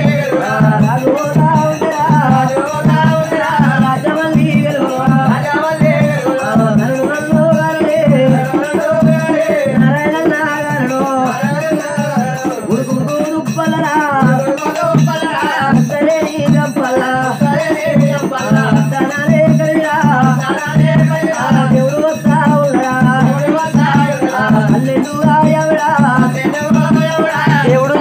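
Telugu Oggu Katha folk music: drums and a rattling jingle keep a quick, steady beat under a repeating melodic phrase.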